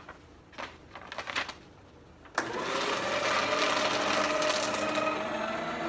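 A sheet of paper rustles as it is handled, then about two seconds in an electric paper shredder's motor starts suddenly and runs with a steady hum as it cuts the sheet.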